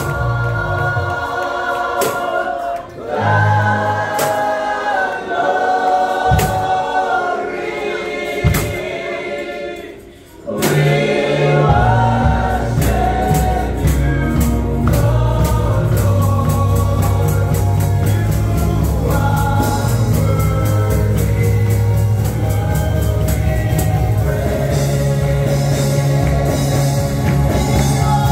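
Gospel worship song sung by a choir-style praise team. About ten seconds in, the music drops nearly to a pause, then bass and drums come in with a steady beat under the voices.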